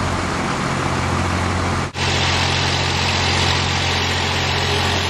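A large engine idling steadily, a constant low droning hum. The sound drops out for an instant about two seconds in, then the same hum carries on.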